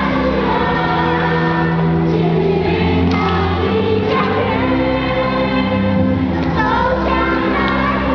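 A choir singing over held chords of instrumental accompaniment.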